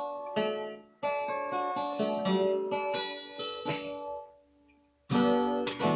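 Acoustic guitar playing a short instrumental passage of strummed chords and ringing plucked notes. The sound cuts out completely twice, briefly just under a second in and for well over half a second after about four seconds, before loud strumming resumes near the end.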